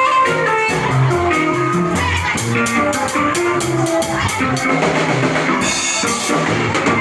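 Music with a steady drum-kit beat and held notes from keyboard or guitar, playing continuously.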